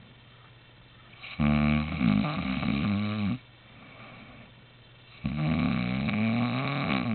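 A man snoring in his sleep: two long snores of about two seconds each, the first about a second and a half in and the second near the end, with quieter breathing between them.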